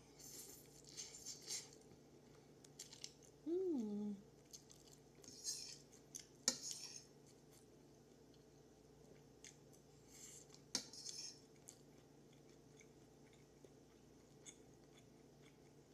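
A person slurping and chewing hot, wide chow fun rice noodles, with wet mouth sounds in a few spells. A metal fork clicks sharply against a ceramic bowl about six and a half seconds in and again near eleven seconds. A short hummed "mm" comes about three and a half seconds in.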